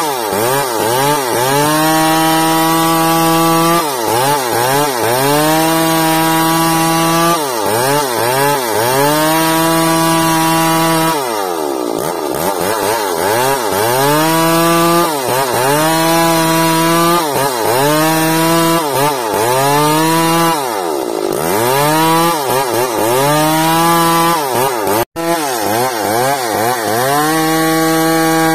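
Chainsaw ripping bayur wood lengthwise into rafter stock, its engine held at full throttle. About every three to four seconds the pitch sags and climbs back as the bar digs into the cut and eases off. Near the end it drops out for an instant.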